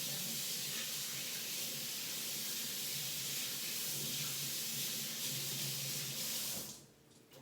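Steady loud hiss, like air or gas rushing, that cuts off abruptly near the end.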